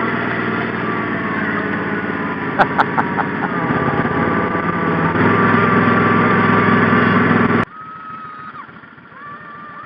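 Small engine of the vehicle towing a giant sled, running steadily and growing louder toward the middle, with a few sharp clicks about two and a half to three seconds in. It cuts off abruptly about seven and a half seconds in, leaving much quieter noise with faint children's shrieks.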